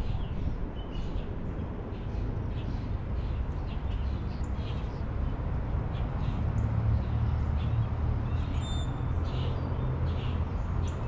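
Birds chirping in short, repeated calls over a steady low rumble.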